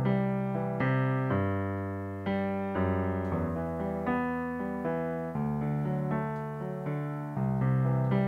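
Digital piano playing a slow solo intro: chords struck about once a second, each ringing and fading before the next.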